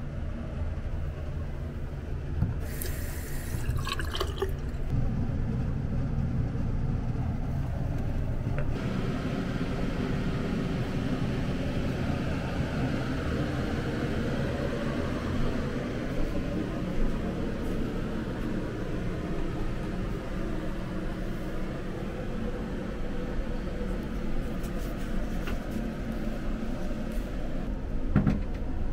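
Water running steadily, as from a tap or shower in a small room, starting about a third of the way in and stopping near the end.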